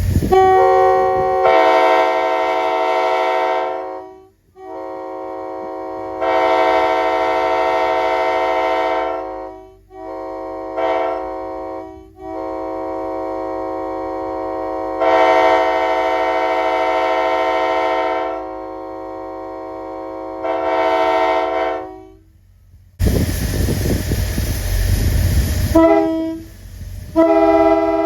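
Locomotive multi-chime air horn sounding a chord in a series of blasts, several long and a couple short, one getting louder partway through. Near the end comes a loud burst of rushing noise, then another horn starts.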